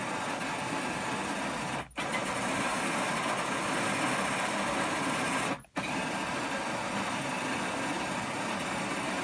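R2-D2 droid's dome drive motor turning the toothed dome ring with the dome off: a steady mechanical whirr of motor and gears that cuts out briefly twice, about two seconds in and near six seconds.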